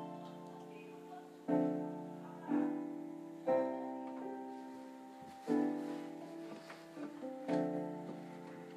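Background music: slow piano chords, a new chord struck about every one to two seconds and left to ring and fade.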